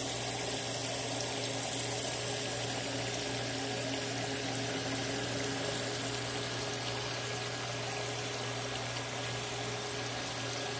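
Aquarium filter running: a steady hum from its pump under the continuous splash of its outflow pouring into the tank water, easing slightly a few seconds in.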